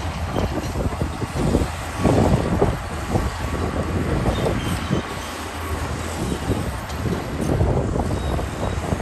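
LiuGong 160C crawler bulldozer's diesel engine running under load, with the steel tracks clanking and squealing and stone grinding and scraping; the clatter gets louder about two seconds in.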